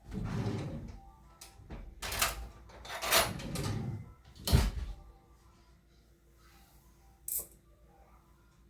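Kitchen things being handled: several scraping slides in the first four seconds, a sharp thump about four and a half seconds in, and a single click near the end.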